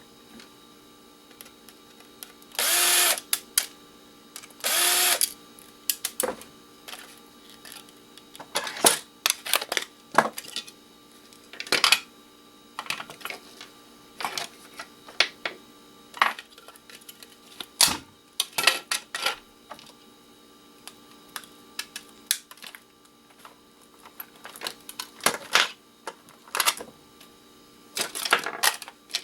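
A handheld power drill runs in two short bursts, followed by repeated clicks and clatter of small plastic and metal electronics parts being handled and dropped during disassembly.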